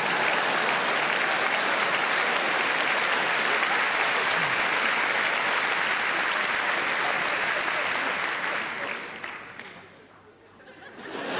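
Audience applauding steadily, the applause dying away about nine seconds in, with crowd noise picking up again near the end.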